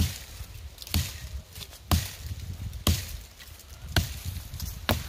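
Marbles hatchet chopping into a young poplar trunk: six sharp strikes, evenly paced about one a second.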